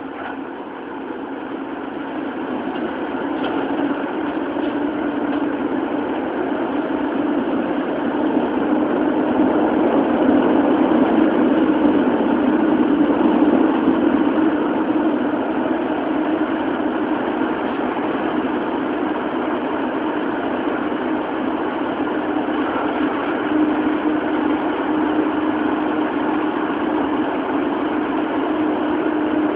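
Running noise of a Toei 10-000 series subway train (GTO chopper control, DC series-wound traction motors), heard from inside the car as it runs in the tunnel. The noise grows louder over the first ten seconds or so, then holds steady, with a steady hum under the wheel and track rumble.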